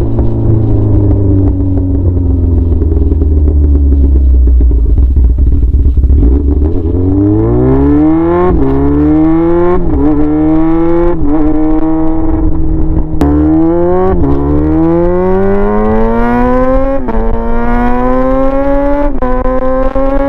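Yamaha R6 inline-four sportbike engine with no muffler, straight-piped, running low and steady for about six seconds, then accelerating hard: the pitch climbs and drops back at each of about six upshifts.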